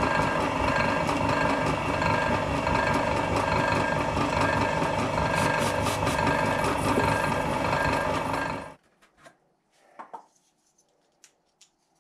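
Drill press running, its bit drilling a steel knife blank forged from an old bearing: a loud steady mechanical drone with a few high steady tones, and short hissing sprays of cutting fluid about six seconds in. The drone stops abruptly about nine seconds in, and a few faint clicks and knocks follow.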